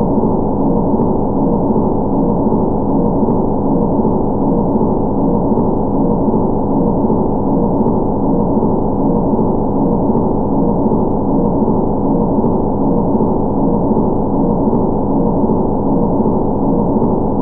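Engine running steadily at a constant speed, a dense low hum with no change in pitch, and a faint tick repeating about every two seconds.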